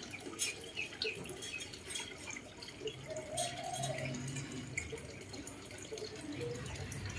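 Faint water dripping and trickling with scattered light clicks, and a low hum coming in about halfway through.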